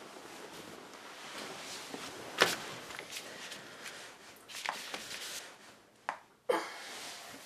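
Bedsheet rustling as it is thrown back, then a few sharp slaps and knocks, the loudest about two and a half seconds in: bare feet and slippers on a tiled floor.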